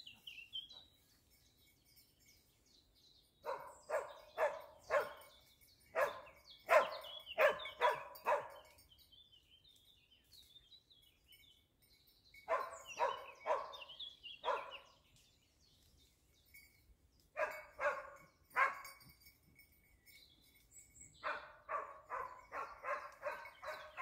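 Dachsbracke hound giving tongue while working wild boar: bursts of four to six quick barks several seconds apart, the last burst faster and longer.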